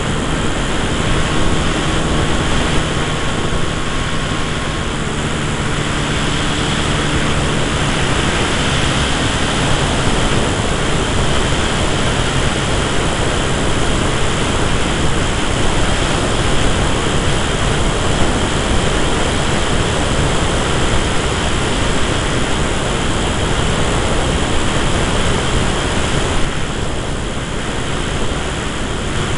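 Airflow rushing over the microphone of a camera riding on an electric 80-inch-wingspan RC Tiger Moth biplane in flight, with its electric motor and propeller running under the wind noise. A faint steady tone from the drive shows through during the first several seconds.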